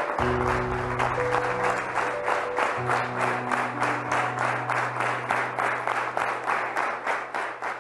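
Audience applauding in a steady, even clapping over slow background music with long held low notes; both fade out near the end.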